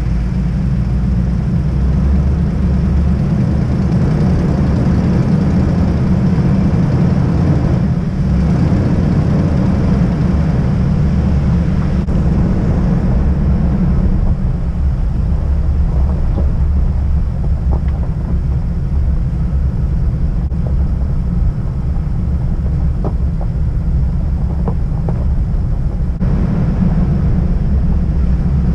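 Pickup truck driving on a gravel dirt road, heard through a camera mounted outside on the hood: a steady low rumble of wind on the microphone and tyres on gravel, with a few faint ticks in the middle stretch.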